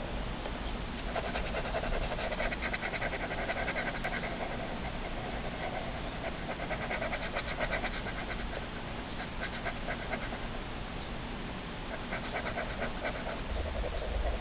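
Ballpoint pen scribbling on sketchbook paper: runs of quick back-and-forth hatching strokes, each run lasting a second or few, with short pauses between.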